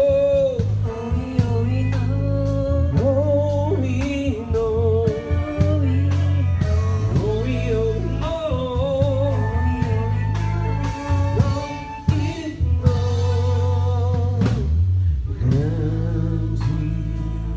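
Gospel worship song: a voice singing a melody over a band with steady bass and drums, with a brief drop in the accompaniment twice near the end.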